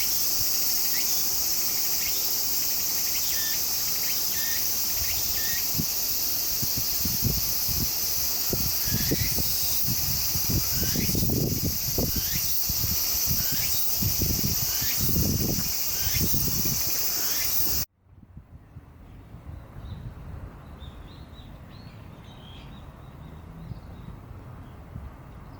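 Loud, steady high-pitched insect chorus, with short falling chirps repeating over it and some low rumbles in the middle. It cuts off abruptly about 18 seconds in, leaving a much quieter outdoor background with faint chirps.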